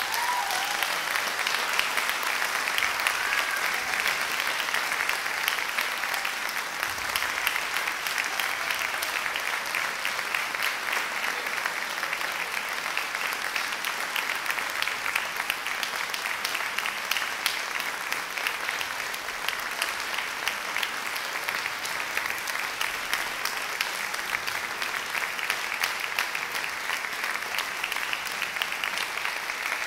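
Audience applauding steadily at the end of a concert band piece.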